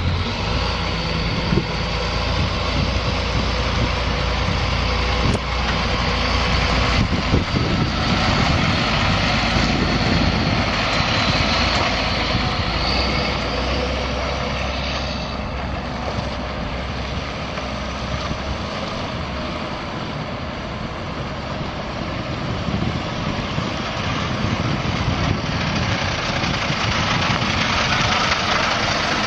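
International DT466 inline-six diesel of a bucket truck running, a steady drone whose low hum drops away about two-thirds of the way through.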